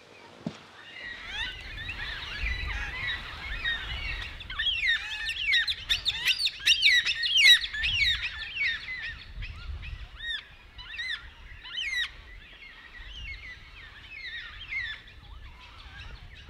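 A flock of birds calling together: many short chirps overlapping, busiest and loudest in the middle and thinning toward the end, over a low rumble.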